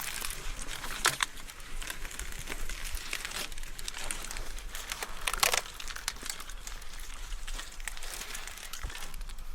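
Mountain bike tyres rolling over a loose, crunchy trail surface, a continuous crackle of gravel and debris with many small clicks. Two louder sharp knocks stand out, about a second in and again about five and a half seconds in, over a steady low rumble.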